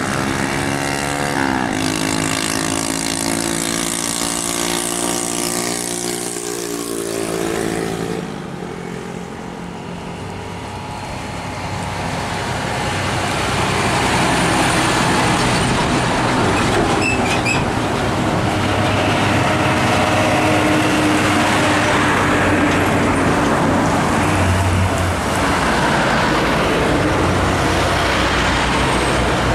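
Road traffic of heavy container trucks and motorbikes passing. An engine note falls in pitch about six to eight seconds in, then, after a brief lull, louder, steady engine and tyre noise as another truck goes by.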